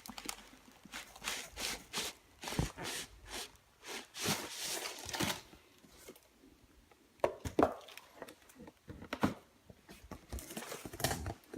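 A shipping package being handled and unwrapped by hand: irregular crinkling and rustling of the wrapping, broken by short sharp handling knocks.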